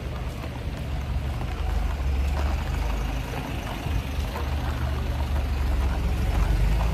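Steady low rumble of wind buffeting the microphone while walking along a street, with faint street noise behind it.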